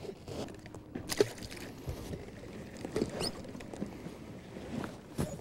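Water lapping and slapping against the side of a small boat's hull, with irregular small knocks and clicks and one brief squeak about three seconds in.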